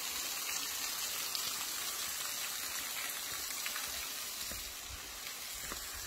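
Steady hiss of falling and running water from a waterfall and its shallow stream.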